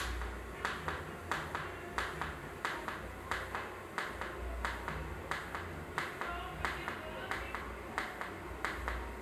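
Pulsed TIG welding arc on stainless steel pipe, cracking in an even rhythm of about one and a half pulses a second over a low hum.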